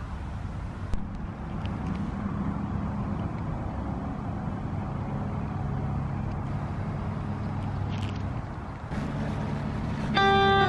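Steady low engine hum of a motor vehicle, with a single click about a second in. Acoustic guitar music starts near the end.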